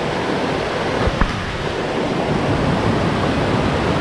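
Steady rush of a rain-swollen small creek and waterfall in full flow, which the angler calls raging and roaring and puts down to storms the night before. A single brief knock about a second in.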